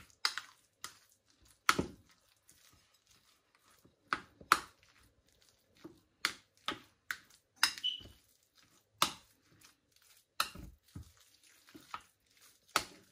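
Metal spoon clinking against a glass mixing bowl while grated cheese filling is stirred: irregular sharp knocks, roughly one or two a second, some louder than others.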